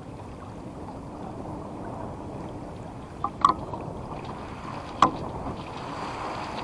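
Water rushing and washing past the hull and stern of a sailing yacht under way, a steady wash of wake. A few short sharp knocks cut through it, two close together about halfway through and one about five seconds in.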